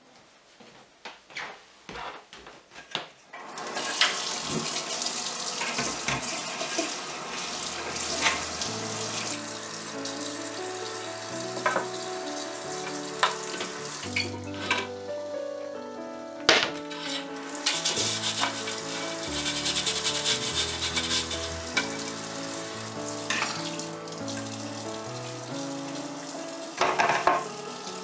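Kitchen tap running into the sink while clear plastic food-dehydrator trays are rinsed, with light clicks and knocks of the plastic trays, more of them in the first few seconds. Soft background music with a slow melody from about eight seconds in.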